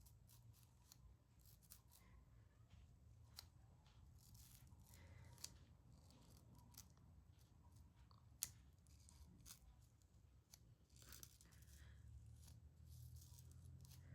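Faint intermittent scratching and light clicks of a comb being worked over the wig, with one sharper click about eight seconds in, under a low steady hum.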